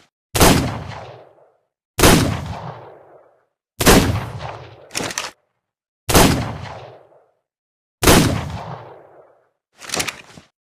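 Revolver gunshot sound effect: five loud shots about two seconds apart, each followed by a fading echo tail, with short mechanical clicks between the later shots.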